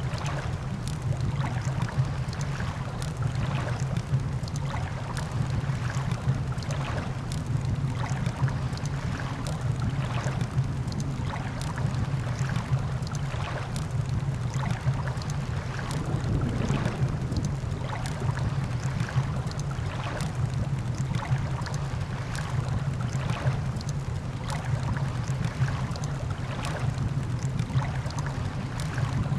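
Campfire crackling with frequent sharp pops over a steady low rumble of surf.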